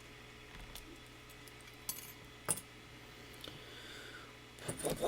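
Small metal clicks and clinks from handling the Sargent Signature lock and its metal parts: a couple of sharp clinks about two and two and a half seconds in, then a cluster of clinks near the end.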